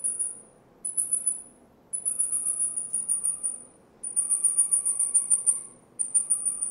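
Mouse lemur territorial chatter: very high-pitched, rapid trilling calls in about five bouts of roughly a second each, separated by short pauses.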